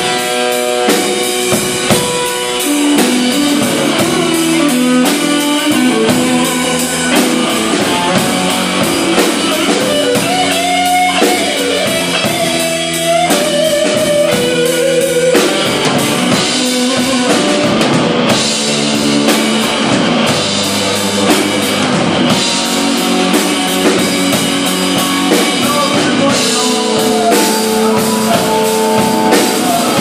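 Live blues-rock band playing an instrumental passage without vocals: electric guitars over a steady drum-kit beat. The guitar bends notes around the middle.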